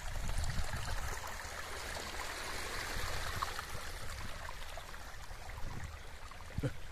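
Small sea waves washing steadily over the rocks and pebbles of a rocky shore, a continuous watery rush with a low rumble underneath.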